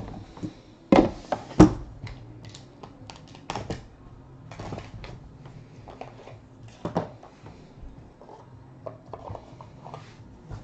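Hands handling a trading-card box and its pack: a couple of sharp knocks about a second in, then scattered taps, clicks and rustles as the white pack's wrapper is opened.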